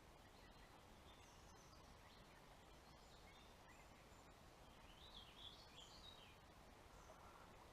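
Near silence: faint outdoor ambience with a few faint bird chirps, most of them a little past the middle.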